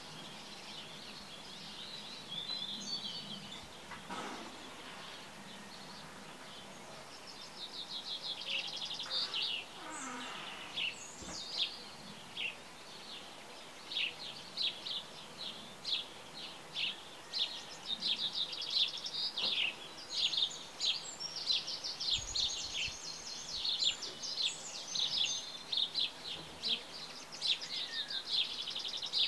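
Small birds chirping: a quick run of short, high chirps, sparse at first and almost continuous from about seven seconds in, over a faint steady hiss.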